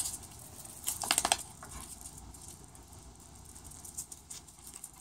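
Faint footsteps and scuffs on a concrete patio, with a short cluster of louder scuffs and clicks about a second in.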